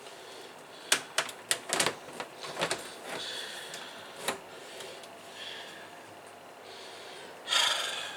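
A quick run of sharp clicks and knocks from a desktop computer case being handled, its panels and hardware knocking together, then another knock and a short rushing noise near the end.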